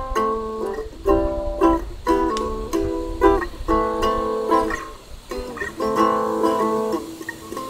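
A small backpacking acoustic guitar played as a run of strummed and picked chords, each group about a second long with short breaks between.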